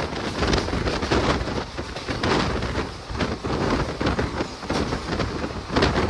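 Rumble and rapid irregular clatter of wheels as a long freight train of open box wagons runs past close alongside. The noise is heard from the open doorway of a moving passenger train.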